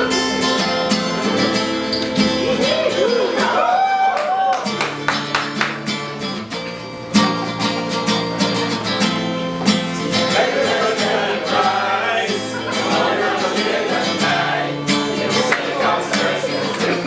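Music: a song with strummed guitar and a singing voice.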